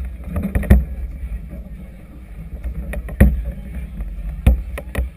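Choppy harbour water and wind with a steady low rumble, broken by sharp knocks at irregular intervals. The loudest knocks come near the start and about three seconds in.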